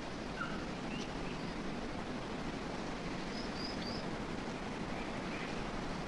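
Outdoor ambience: a steady rushing background noise with a few brief, faint bird chirps over it, three close together about three and a half seconds in.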